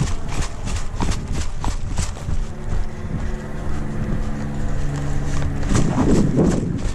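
Quick running footsteps on the ground, about four a second, with gear rattling, fading out partway through; near the end a loud rustle of clothing or wind on the microphone.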